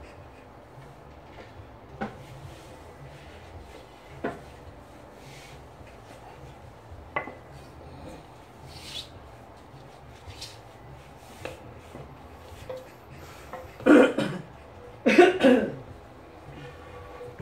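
Bamboo sticks knocking now and then: a few sharp single wooden knocks a couple of seconds apart, with fainter ticks between. Near the end come two louder, longer sounds of about half a second each.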